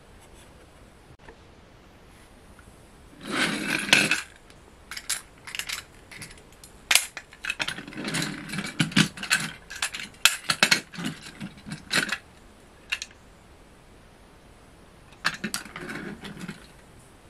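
Plastic Plarail 800 series Shinkansen toy cars being handled and coupled on a wooden floor: short scrapes of the cars sliding on the boards and a run of small plastic clicks and knocks from the couplers, in three spells with the longest in the middle.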